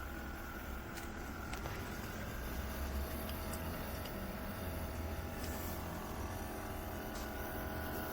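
A steady mechanical hum with several fixed tones, broken by a few faint ticks.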